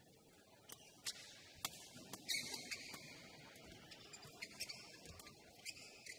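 Badminton rackets striking a shuttlecock in a singles rally, a series of sharp cracks roughly a second apart, with high-pitched squeaks of players' shoes on the court floor.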